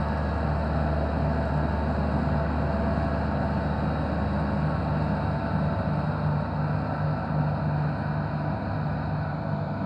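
Case 1490 tractor's four-cylinder diesel engine running steadily under load while driving front and rear disc mowers through grass. It grows slightly fainter near the end.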